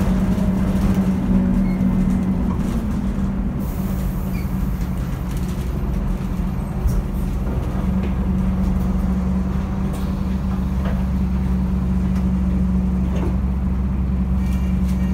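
Scania double-decker bus's diesel engine running steadily, a low, even hum heard from inside the lower deck, with a single short knock about seven seconds in.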